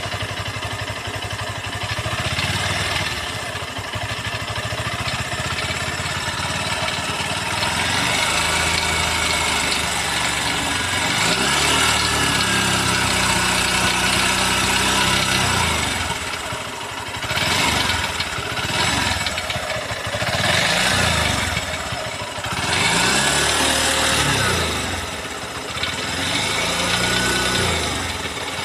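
Honda CB200X single-cylinder engine idling, then held at higher revs, then blipped up and down several times in the second half, with a thin whine rising and falling with the revs. The owner takes the engine's sound for abnormal on the new bike.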